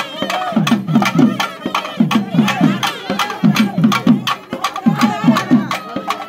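Thavil drumming: deep, pitch-dropping strokes on the bass head in quick groups of three or four, with sharp stick strokes in between, and a wavering melody line above.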